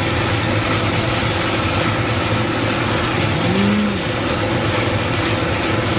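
Stir-frying over high heat: a steady sizzle of the sauce and meat in the wok over a steady low mechanical hum. A short tone rises and falls about three and a half seconds in.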